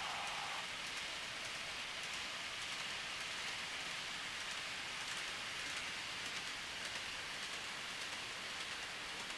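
Steady hissing running noise of a train on its track, with faint light clicks scattered through it.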